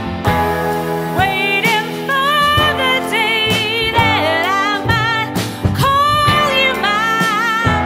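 Live jazz band: a female voice singing a melody with vibrato, over keyboard, upright bass, drums and electric archtop guitar.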